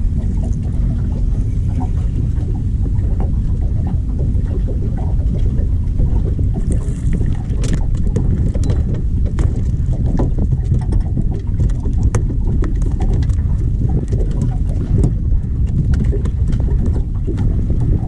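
Wind buffeting the microphone: a loud, steady low rumble, with scattered small knocks and clicks throughout.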